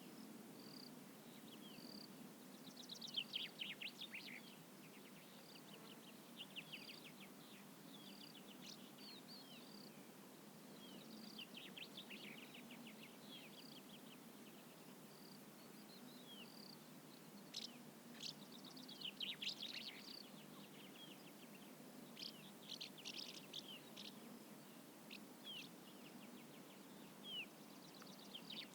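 Evening outdoor ambience with birds: bursts of rapid high twittering song every few seconds over a short high call repeated about once a second, with faint low background noise throughout.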